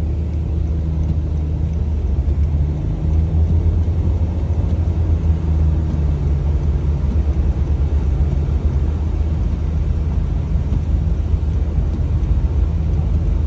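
A vehicle running: a steady low rumble of engine and road noise, with a faint engine hum that comes and goes.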